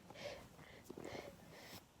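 A person's faint, uneven breaths and sniffs during a sneezing fit, with a small click near the end.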